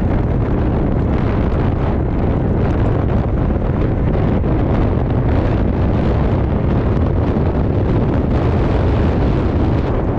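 Steady, heavy wind buffeting on the microphone from riding at about 40 to 50 km/h, a dense low rumble with no distinct events.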